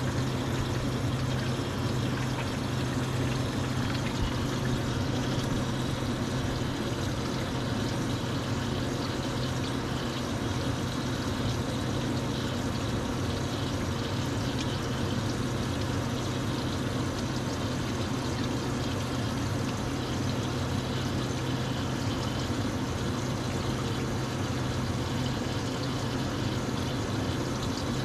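Mitsubishi wire EDM running its automatic touch-off cycle to measure the plate's axis rotation: a steady low machine hum with water trickling from its dielectric flushing system.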